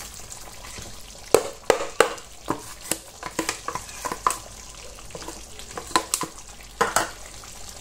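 Wooden spoon tapping and scraping against a plastic container as chopped celery and parsley are pushed out into the pot, about a dozen irregular taps. Under them, a pot of stew simmering with a faint sizzle.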